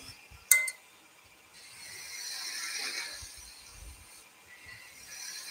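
Wood lathe turning a small spindle while a skew chisel is presented to it: a sharp click about half a second in, then a soft hiss of the chisel cutting the wood that swells and fades over a second or two.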